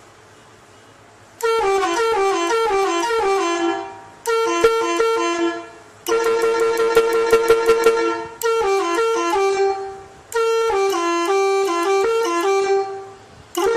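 Landun Marcopolo telolet horn, a 24-volt three-trumpet, six-tone electric horn for trucks and buses, playing short stepping melodies. There are five phrases with brief gaps between them, the first starting about a second and a half in.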